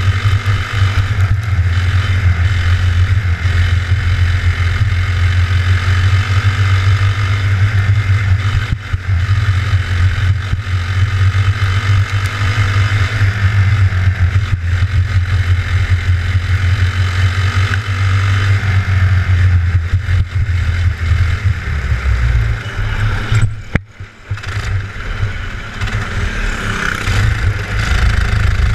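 A racing kart's engine, heard from a camera mounted on the kart itself, running hard and steadily lap after lap. The sound drops out briefly a few seconds before the end, then comes back at full level.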